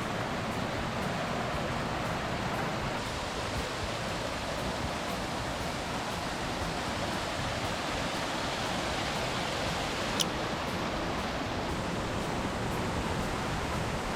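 Waterfall rushing steadily, falling water making an even, unbroken roar. A single sharp click about ten seconds in.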